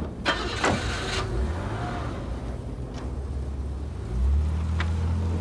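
A car door shuts with a sharp knock, then the car's engine runs with a steady low hum that gets louder about four seconds in.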